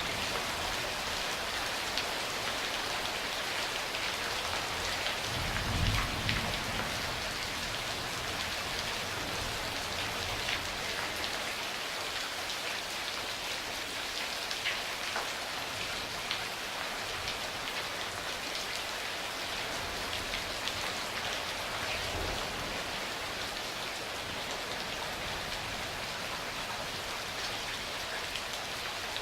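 Steady rain falling, with individual drops ticking through the hiss. A brief low rumble of thunder about six seconds in, and another fainter one a little past twenty seconds.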